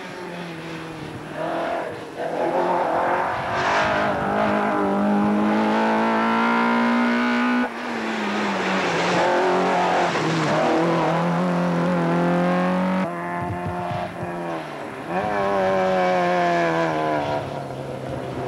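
Rally hatchback engines revving hard as the cars pass one after another. The pitch climbs steadily, then drops suddenly at each gear change or lift, several times.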